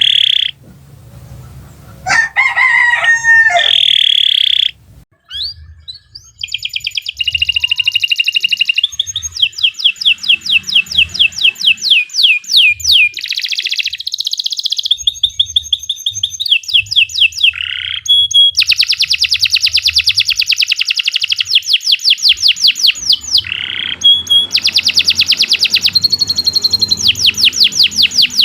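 Domestic canary singing: a few short calls, then from about six seconds in a long, loud song of fast, high-pitched trills and rolls with only brief breaks.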